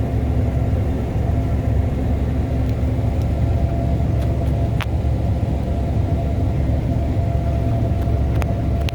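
AGCO Gleaner S97 combine running steadily while harvesting beans, heard from the cab: a constant low machinery rumble with a steady hum over it. A few short clicks stand out, one about five seconds in and another near the end.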